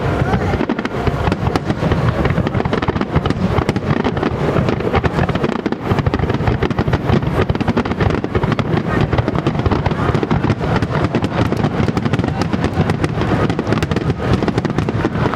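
Starmine fireworks barrage: shells bursting in rapid, unbroken succession, a dense mass of bangs and crackling with no pause.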